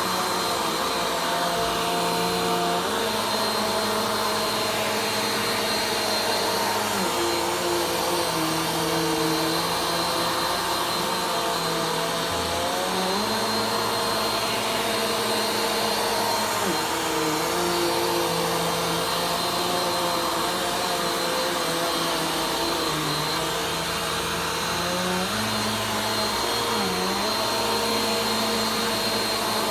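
Vacuum cleaner running continuously as it is worked over a floor, its motor note stepping up and down in pitch every few seconds.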